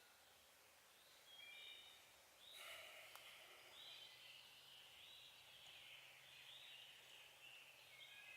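Faint songbirds singing: a few short whistled notes, then a longer run of warbling chirps from about two and a half seconds in.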